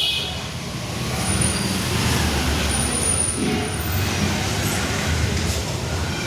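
Road traffic: a steady low rumble of passing vehicles, with a few brief high-pitched squeaks.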